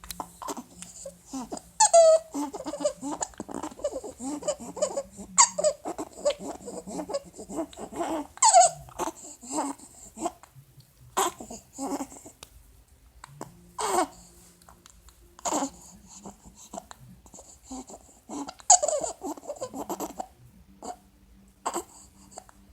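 A baby with laryngomalacia breathing noisily: repeated squeaky, high-pitched stridor on the breaths, with short baby vocal sounds between and a few louder squeaks, signs of the floppy airway tissue narrowing as he breathes in.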